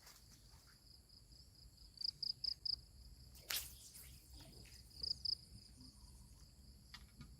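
Insects chirping in short runs of three or four high pulses, repeating every couple of seconds, with one sharp swish about three and a half seconds in.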